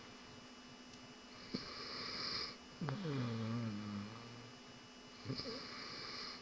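A man snoring in his sleep: a hissing breath, then one long, low snore about three seconds in, then another hissing breath near the end.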